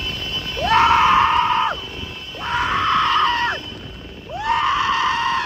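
Three long, high, whooping shouts, about a second each. Each one swoops up to a held note and drops away at the end.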